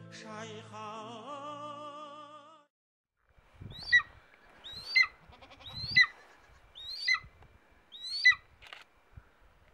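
Music with a singing voice fades out. Then a golden eagle calls five times, about once a second: each call is a loud, high yelp that rises and then drops sharply.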